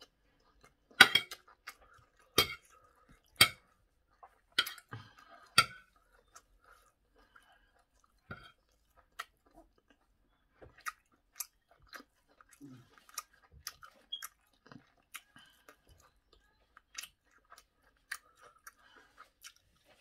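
Close-up chewing of a mouthful of rice, chicken and vegetables. Five sharp clicks fall in the first six seconds, with many fainter clicks after them.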